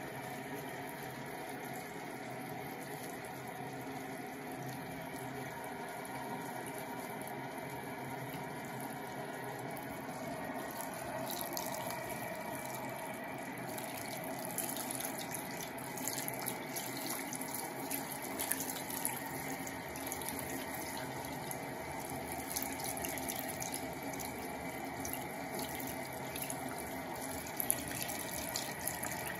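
Water running steadily from a bathroom sink's mixer tap. From about eleven seconds in, there is frequent splashing and dripping as hands rinse a wet kitten under the stream.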